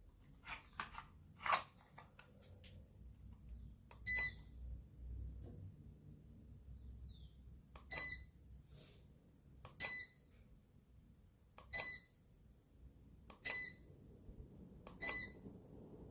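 Deka F5DC DC ceiling fan's control unit giving six short, high acknowledgement beeps, one for each remote command received. The first gap is about four seconds, then the beeps come about every two seconds. A few faint clicks come before the first beep.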